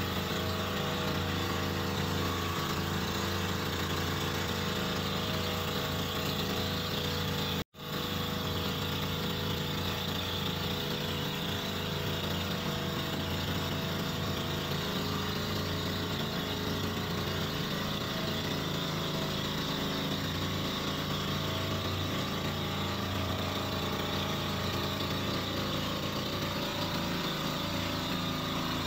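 Outrigger boat's engine running steadily while under way. The sound cuts out completely for an instant about a quarter of the way through.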